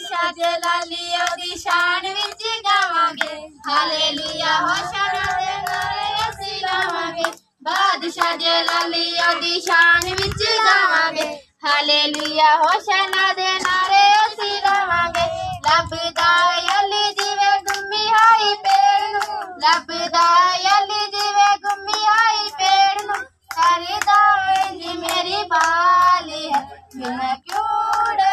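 A child singing a worship song in a steady melody, with hands clapping along in a regular beat.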